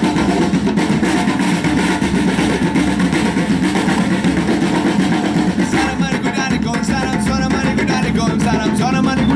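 Loud music with drums and guitar; the arrangement changes about six seconds in, when a wavering melodic line enters over sharper drum strokes.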